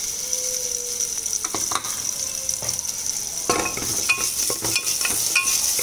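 Washed broken wheat (dalia) and moong dal sizzling in hot ghee and cumin in a pressure cooker, a steady high hiss. From about three and a half seconds in, a spatula scrapes and clicks against the cooker as the grains are stirred.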